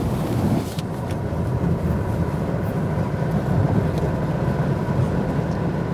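Steady road and engine noise of a car being driven, heard from inside the cabin, with two faint clicks about one and four seconds in.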